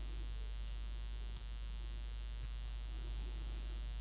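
Steady electrical buzz and hum made of many evenly spaced tones, unchanging throughout, with a couple of faint taps, the first about a second and a half in.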